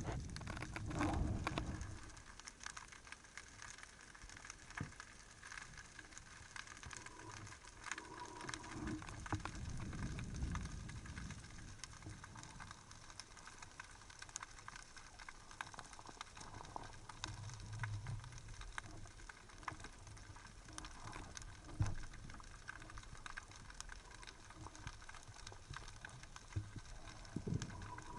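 Underwater ambience heard through a diving camera's housing: a steady crackle of many small clicks, with a few low rumbles and one sharp knock a little past the middle.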